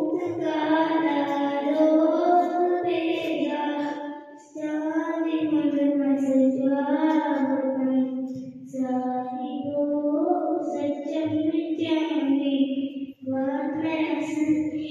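A young girl singing solo into a microphone, one voice holding long melodic phrases with short pauses for breath between them.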